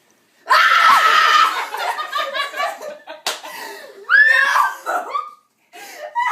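A woman's sudden loud shriek of surprise about half a second in, then breathless laughing and exclamations, with a single sharp smack about three seconds in.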